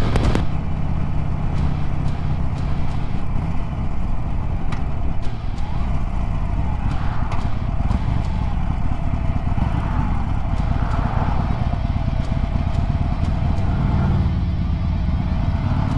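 Harley-Davidson 1200 Sportster's V-twin engine running steadily under way on the road.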